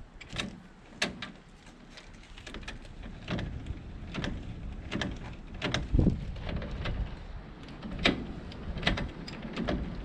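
Irregular metal clicks and clunks as an ARK XO 750 jockey wheel is handled in its steel drawbar clamp and the clamp handle is wound tight, over a low rumble.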